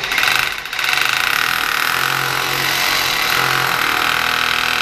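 Hammer drill boring a hole into the concrete wall, running steadily at full speed.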